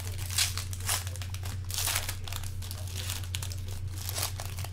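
Foil wrapper of a trading-card pack crinkling and tearing as hands peel it open, in a run of short rustles, over a steady low hum.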